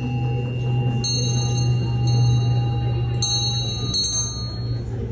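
Tibetan hand bells struck twice, about two seconds apart, each strike leaving a bright, high ringing that hangs on while an earlier note fades out. A steady low hum runs underneath.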